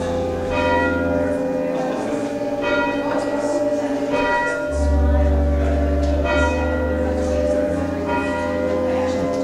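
Bells chiming a slow tune, a struck note about once a second, over held low bass notes that change every few seconds.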